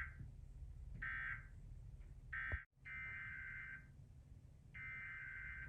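Emergency Alert System SAME digital data bursts: harsh, buzzy two-tone screeches repeating about a second apart. The shorter first bursts are the end-of-message code that closes one station's test. After a sudden cut, longer bursts follow: the header code that opens the next station's test.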